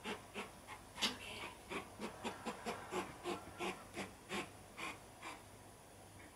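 Domestic cat hyperventilating: rapid, noisy huffing breaths, about three or four a second, excited by an insect it is stalking. The huffs stop a little over five seconds in.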